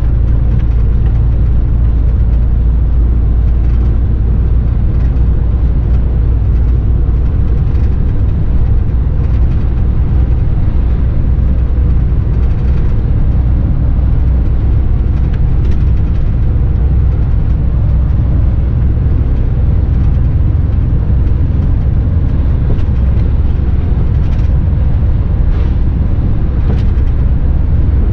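Mercedes-Benz truck driving along a road, heard from inside the cab: a steady, loud, low engine and road rumble that holds even throughout.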